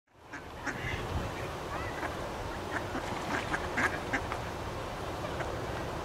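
Ducks giving a scattered series of short quacks over steady background noise, fading in at the start.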